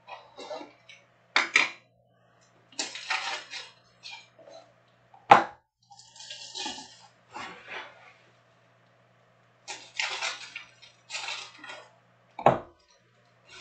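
Hands handling trading-card packs and boxes: plastic wrappers crinkling in short bursts, broken by sharp clacks as things are set down on the table. The loudest clacks come about five seconds in and near the end.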